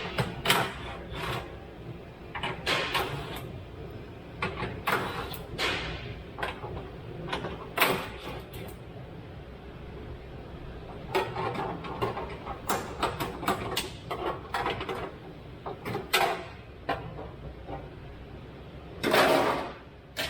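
Sheet-metal heat shield under a car being worked loose and pulled down: irregular clanks, knocks and scraping, with a longer, louder scrape near the end.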